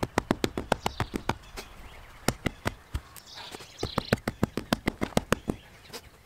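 Hand tamper's flat steel plate pounding loose soil in a quick, even run of knocks, about six a second, with a few short pauses. Faint bird chirps sound between the knocks.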